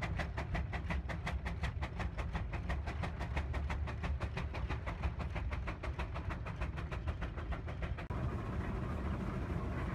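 Sawyer-Massey steam traction engine pulling a gang plow, its exhaust chuffing in a fast, even beat of about five a second over a steady low rumble. About eight seconds in the beat drops out, leaving a steady rushing noise.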